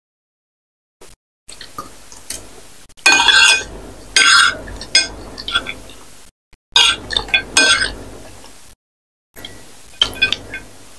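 Metal spoon and fork clinking and scraping against a ceramic plate several times, with close-miked chewing of noodles in between. The sound starts after about a second and a half of silence.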